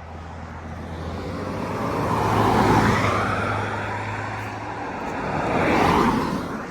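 Two road vehicles passing close by, one after the other: engine hum and tyre noise swell to a peak about three seconds in, then a second vehicle swells and passes near the end.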